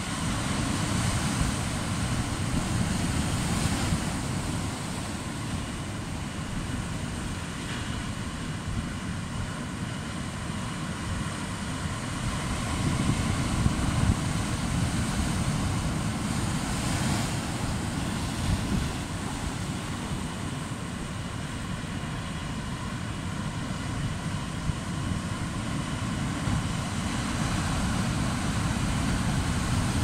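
Ocean surf breaking and washing over rocks: a steady low rush that swells briefly a few times as waves crash, with wind buffeting the microphone.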